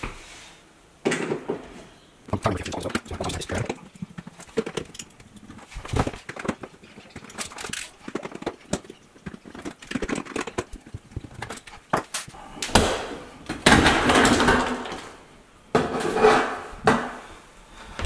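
Handwork on a Bosch Serie 6 dishwasher's sheet-metal lower front panel: a screwdriver clicking and scraping as the Torx screws are undone, then a longer, louder rattling scrape of the metal panel as it is worked loose about two-thirds of the way through.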